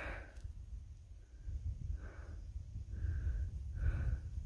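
A hiker breathing hard while climbing, with short breaths about once a second over a low steady rumble.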